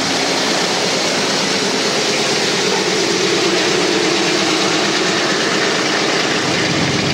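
B-17 Flying Fortress's radial piston engines running close by, a loud, steady rush with no let-up.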